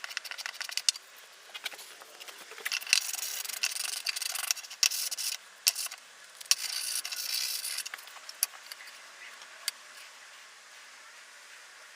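Hand work on small plywood pieces: two spells of rubbing, scraping strokes on wood, with scattered light knocks and clicks between them.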